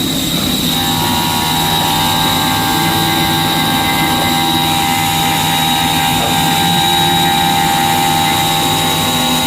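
Horizontal machining centre running, a steady mechanical whine made of several held tones over a noisy rush. A further set of higher whining tones joins in about a second in.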